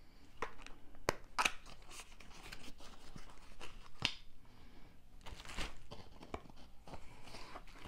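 Eyeshadow palette's cardboard box and inner wrapping being opened by hand: an irregular run of rustling, tearing and sharp clicks.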